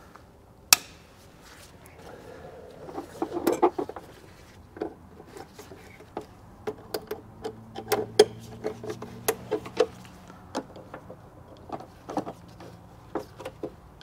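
Irregular sharp clicks and knocks of hand tools against metal and plastic parts in a diesel engine bay, one sharp click about a second in and busier clusters later. A faint low hum runs through the middle stretch.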